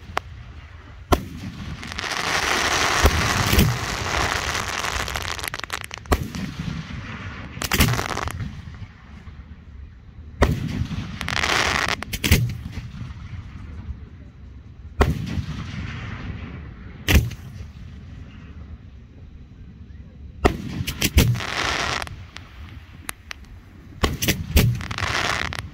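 Aerial firework shells going off: a series of sharp bangs at irregular gaps, several followed by long stretches of crackling.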